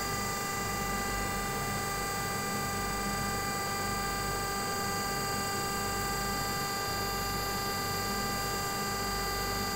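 Computerized Brinell hardness tester humming steadily, a high whine of evenly spaced tones, while it holds a 3000 kgf load on its 10 mm steel ball indenter during the dwell.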